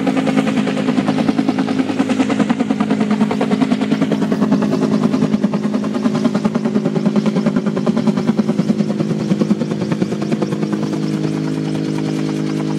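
Helicopter overhead, its rotor chop pulsing fast and evenly over a steady engine drone. The chop fades in the last couple of seconds, leaving the drone.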